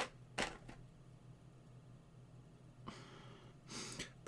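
Small model-kit parts being handled: a sharp click, then a second one about half a second later, over a faint steady hum. A short rustle follows about three seconds in, and an intake of breath near the end.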